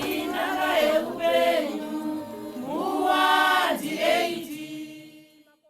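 A group of voices singing a Shona song in long, held phrases. The singing fades out near the end.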